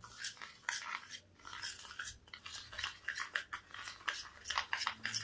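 Metal spoon scraping and clicking against a steel tumbler in quick, irregular strokes, several a second, as instant coffee, sugar and a little water are beaten by hand into a thick paste to make it fluffy.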